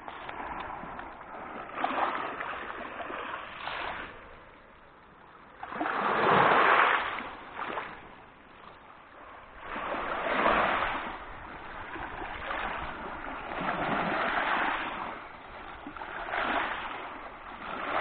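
Sea waves breaking on the shore, about five washes that swell and fade every three to four seconds, the one a little after five seconds in the loudest.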